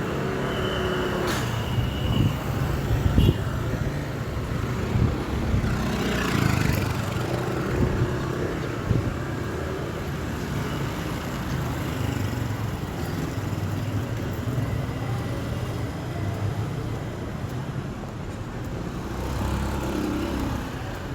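Bustling street ambience: a steady rumble of road traffic with vehicles passing, plus a short high tone and a few sharp knocks in the first few seconds.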